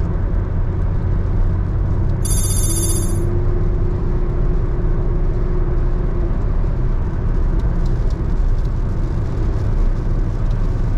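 Steady road and engine rumble inside a Honda City's cabin at highway speed, with rain on the windshield. A brief high-pitched ringing squeal comes about two seconds in.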